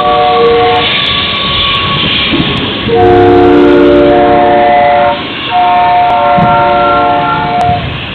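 Locomotive air horn sounding a multi-note chord in long blasts over the rumble of a passing train: one blast ends about a second in, then after a gap come two long blasts, each about two seconds, close together.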